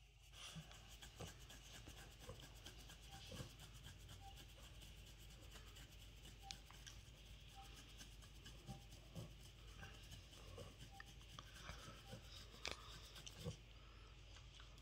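Faint rubbing of hands stroking and scratching a Boston Terrier's short belly fur, with scattered small clicks.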